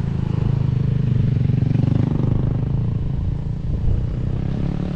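Motorcycle engine running steadily while riding, pulling a little harder about a second in before easing off.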